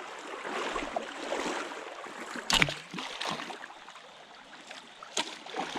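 Steady water noise, with a sharp knock about two and a half seconds in and a smaller one a little after five seconds.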